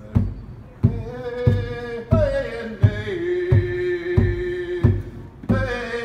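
Indigenous chant: a voice holding long sung notes, one sliding down partway through, over a drum struck steadily about one and a half times a second.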